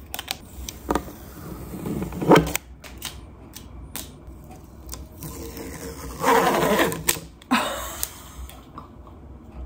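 Hard clear plastic storage tubs clicking and knocking as they are handled, with a sticker label being peeled off one of them, a louder rasping stretch about six seconds in.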